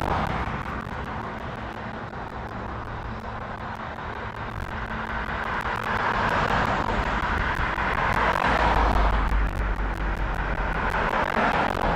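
Passing road traffic: vehicle noise swells and fades three times, with a low rumble building as the loudest pass goes by about eight to ten seconds in.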